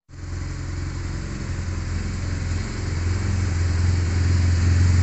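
Engine of a BMW GS adventure motorcycle, a horizontally opposed boxer twin, idling steadily with a low, pulsing hum that grows gradually louder.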